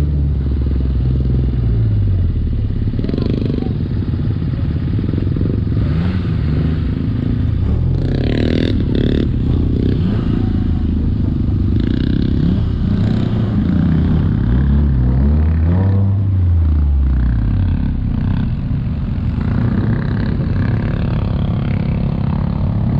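Off-road 4x4's engine running as it crawls along a rough, muddy track, with the revs rising and falling in slow swells several times. There are a few knocks about six to nine seconds in.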